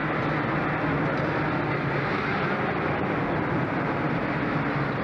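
Racing kart engines running, a steady, unbroken drone.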